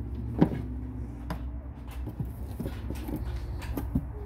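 Items and packaging being handled by hand: scattered small clicks, taps and rustles, with a sharper knock about half a second in, over a steady low hum.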